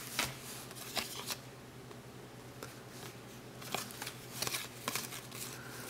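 A stack of cardboard trading cards being flipped through by hand: soft, irregular flicks and slides as cards are moved one by one through the pile, over a faint steady low hum.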